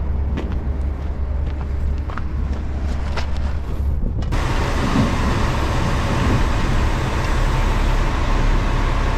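2007 Kenworth dump truck's diesel engine running with a steady low rumble and a few light clicks. About four seconds in the sound changes abruptly to a louder, wide hiss of road and wind noise over the engine.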